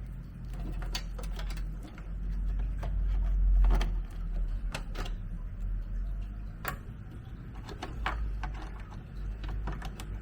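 Power supply cables and plastic connectors being handled and plugged into a desktop computer: scattered clicks and knocks over a low steady hum.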